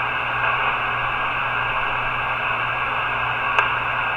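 Steady receiver static hiss from the SWAN 250 tube transceiver's speaker, tuned to a quiet 6-meter frequency, with a steady low hum under it. A single click sounds near the end.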